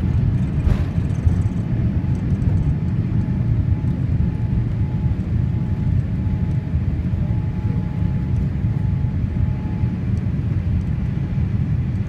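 Steady low rumble of a Boeing 787 airliner's engines at takeoff power, heard from inside the passenger cabin as the plane lifts off the runway and climbs out.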